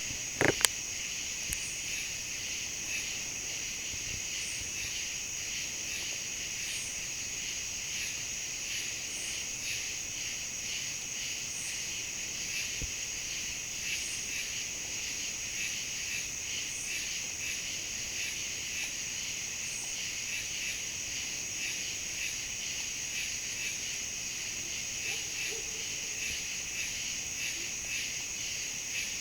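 Dense, steady chorus of insects trilling, a continuous high-pitched pulsing drone with a shrill steady layer above it. A sharp click or knock sounds once, just after the start.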